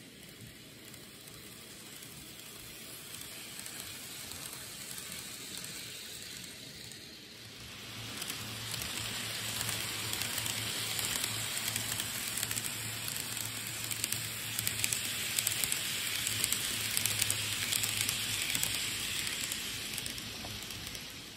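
N gauge model train running on the layout track: a steady crackling rush of small wheels on rail with fine ticks. It gets louder about eight seconds in, as the train comes nearer, with a low hum under it.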